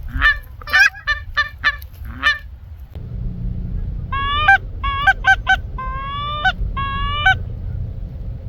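Canada geese honking: a burst of short, overlapping honks, then from about four seconds in a run of longer honks, each ending with an upward break. A low wind rumble lies underneath.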